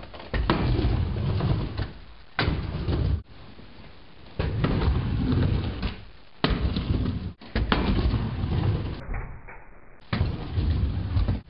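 Stunt scooter riding on a plywood quarter-pipe ramp: low rolling rumble of the wheels on the wood, broken by sharp clacks and thumps as the scooter hits and lands on the ramp. The sound cuts in and out abruptly every second or two.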